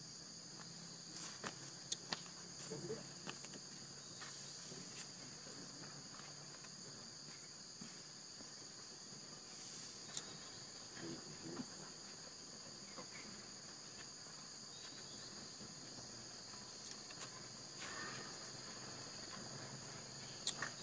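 A steady, high-pitched chorus of insects, two shrill bands held without a break, with scattered faint clicks and taps and one sharper click near the end.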